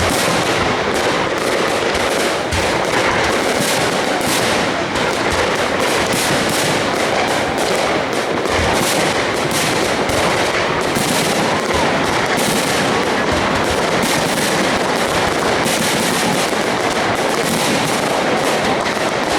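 High-altitude aerial fireworks display bursting without a break: a dense, continuous barrage of bangs and crackling.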